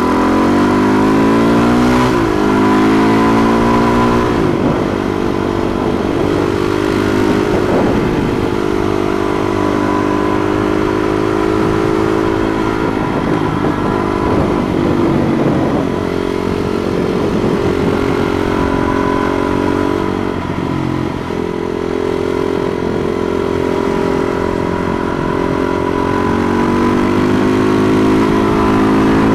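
Husqvarna SMR 510 supermoto's single-cylinder engine heard on board at riding speed: revs climbing for about two seconds, a gear change, then mostly steady revs that dip once past the middle and climb again near the end. Wind rush on the microphone comes and goes over the engine.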